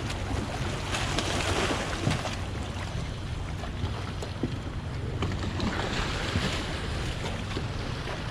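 Wind buffeting the microphone and water moving around the boats, with noise that swells twice, a steady low hum underneath and scattered small knocks.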